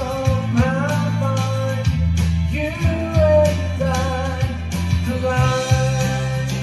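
A man singing a slow song, accompanying himself on a strummed acoustic guitar.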